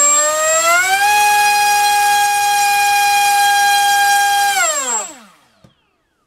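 MultiStar V-Spec 2205 2350 kV brushless racing-drone motor spinning a 5x5 propeller, a loud whine rising in pitch as it throttles up, held steady for about three and a half seconds, then falling as it spools down and stopping about five seconds in.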